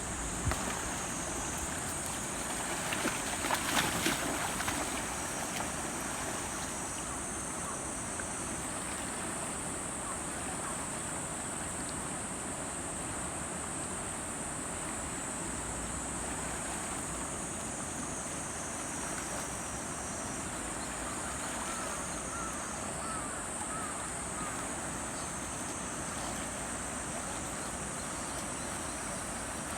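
Steady rush of swollen river water with wind on the microphone, and a louder burst of noise about three seconds in that lasts a couple of seconds.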